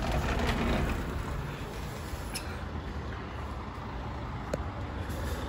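Steady road traffic noise from a main highway: passing vehicles with a low rumble.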